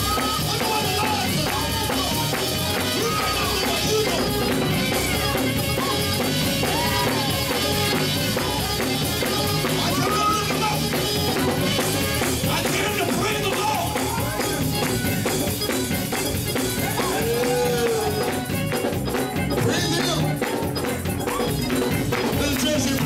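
Church praise-break music: a loud, steady band with drums and tambourine, with voices over it.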